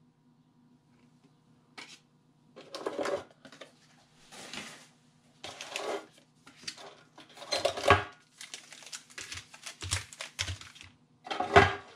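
Foil booster packs rustling and crinkling as they are lifted out of a metal collector's tin and set down on the table, with a few light knocks. It starts after a couple of seconds of quiet and goes on in irregular bursts.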